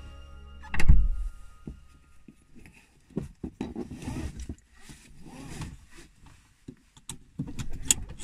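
Music playing in a car stops about a second in, with a heavy thump. After that come rustling and scraping of a seat belt and clothing as someone settles into the car seat, and a couple of sharp clicks near the end, like a seat-belt buckle latching.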